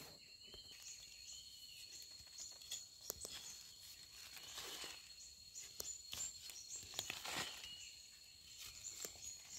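Bamboo-forest ambience: a steady high-pitched insect drone with short high chirps every second or so. Several brief rustles of footsteps and dry bamboo leaves in the leaf litter are mixed in.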